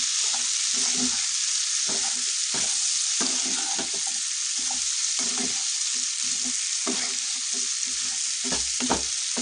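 Potato and green capsicum pieces sizzling in oil in a nonstick kadhai, with a steady hiss, while a spatula scrapes and tosses them around the pan in repeated strokes roughly once a second.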